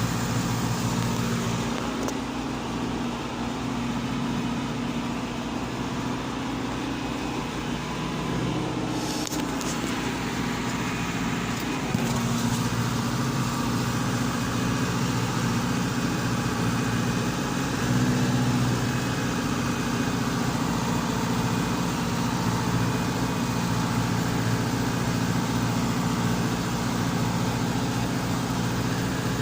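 John Deere tractor's diesel engine running steadily under load while pulling a plough, with a brief rise in engine sound about eighteen seconds in.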